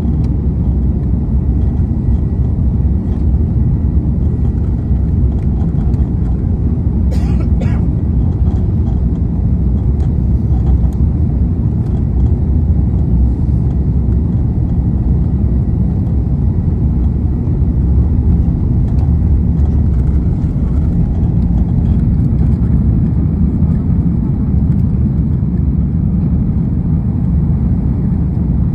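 Airbus A330 cabin noise during the takeoff roll: jet engines at takeoff thrust and a steady, loud rumble from the runway. There is a brief crackle about seven seconds in.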